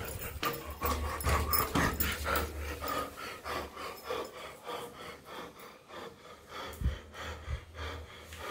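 A man panting hard close to the microphone, quick rhythmic breaths about four a second, with one thump about seven seconds in.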